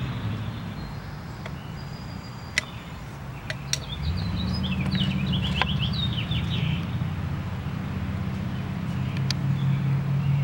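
A bird chirps a quick run of high notes over a steady low drone that gets louder about four seconds in. A few faint clicks are heard.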